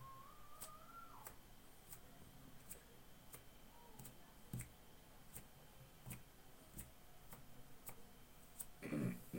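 Faint, even ticking, about three ticks every two seconds, like a clock's tick, with a brief louder low sound near the end.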